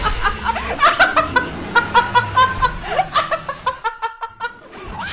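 A woman laughing hard in quick, high-pitched bursts, about five a second, with a brief pause about four seconds in.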